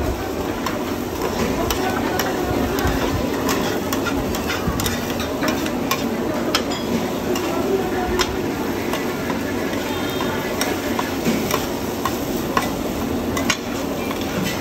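Two metal spatulas scraping, stirring and clinking against a large round griddle as egg and oysters fry, over a steady sizzle. Sharp irregular clinks come from the spatula edges striking the pan.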